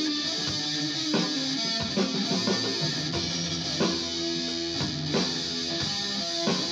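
Guitar-led music with a drum beat, played back over a loudspeaker system, with sustained notes and a new chord or strike about once a second.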